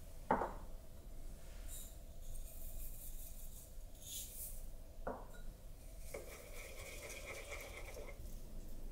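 Kitchen food-preparation sounds: a sharp knock just after the start and another about five seconds in, with light scratchy rustling between them, then about two seconds of steady scraping.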